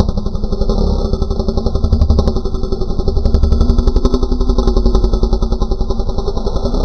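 Engine-like sound effect: a steady, rapidly pulsing motor drone, with a few short runs of sharp clicks partway through.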